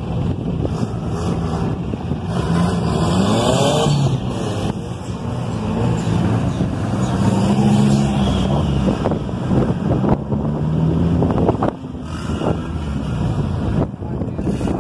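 Off-road 4x4 engines revving, their pitch rising and falling several times as the vehicles drive through shallow water.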